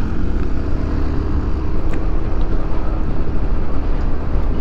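Honda Forza 350 single-cylinder scooter being ridden along the road: steady engine and road noise, heavy in the low end.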